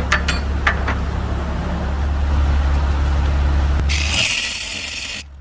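A steady low hum with a few sharp clicks, then about four seconds in a Ryobi angle grinder's abrasive disc bites into a steel padlock shackle with a loud, high hissing grind that stops abruptly after just over a second.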